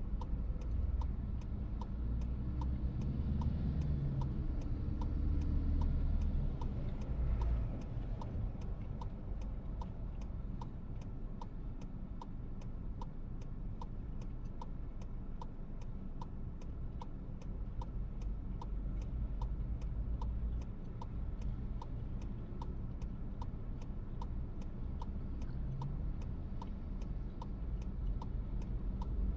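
Turn-signal indicator in a VW T-Roc cabin ticking at a steady even rhythm, over the low rumble of the car's engine and road noise, which swells for a few seconds early on.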